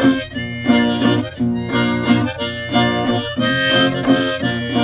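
Instrumental outro music with a rhythmic pattern of short repeated notes.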